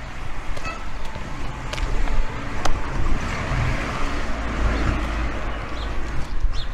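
A road vehicle passing by on the street: its tyre and engine noise swells through the middle and then eases off, over a steady low rumble. A small bird chirps briefly near the start.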